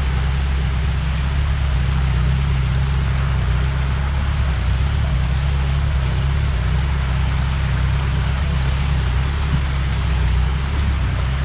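Muddy runoff water rushing down a rocky forest track: a steady loud rush of water with a deep rumble underneath.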